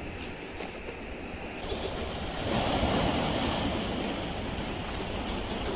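Sea waves surging and washing against the shore, with a wave swelling louder about two and a half seconds in.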